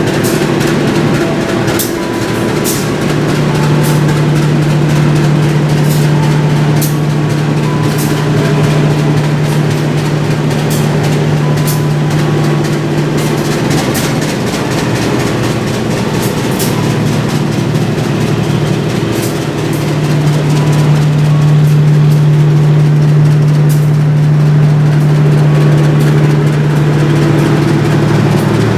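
A train at the station, running with a loud, steady low hum that dips about halfway through and swells again after about twenty seconds, with scattered sharp clicks.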